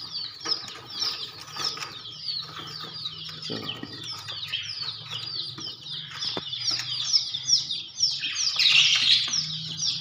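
Many small birds chirping nonstop, a dense chatter of short falling chirps that grows loudest near the end, over a low steady hum.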